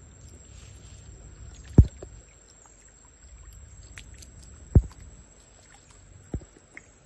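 Water sloshing and splashing in a swimming pool as monkeys bathe, with three dull low thumps, the first two the loudest.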